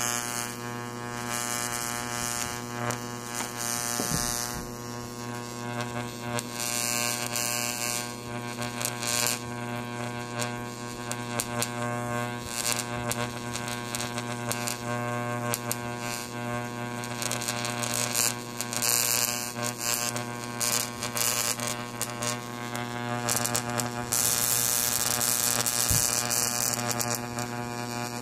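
A 10,000-volt electric arc buzzing steadily between two paperclips, with a crackling hiss that swells and fades every few seconds.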